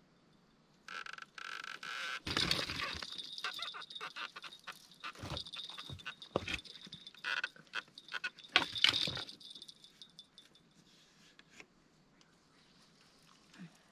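A fishing reel's line-out clicker buzzes rapidly as a fish takes line off the rod. It is mixed with a few heavy knocks from footsteps and rod handling on the rocky shore, and it stops about nine seconds in when the reel is engaged.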